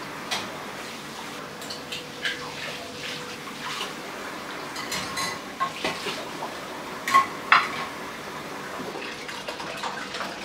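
Dishes being set into a metal wire dish-drying rack: glasses, a frying pan and a glass lid give scattered clinks and knocks over a steady hiss. The two loudest knocks come close together about seven seconds in.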